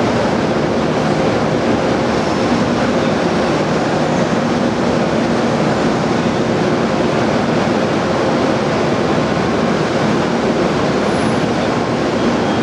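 Diesel locomotive idling: a loud, steady rumble with a low, even hum under it.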